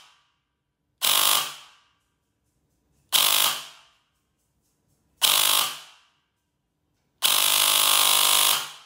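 Bare airsoft electric gearbox (MK Tactical modular CNC, 6.5:1 double-sector-gear build) test-firing on full auto: three short bursts of about half a second, then a longer burst of about a second and a half near the end. The cycling is so fast that the shots run together into a steady buzz that dies away quickly as each burst stops.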